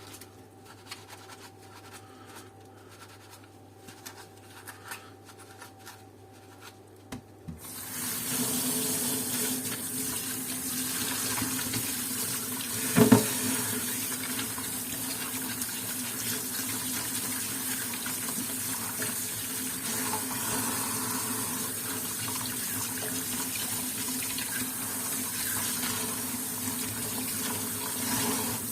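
A water tap turned on about eight seconds in, running steadily into a sink, with one sharp knock about five seconds later. Before that, faint small rubbing and handling noises.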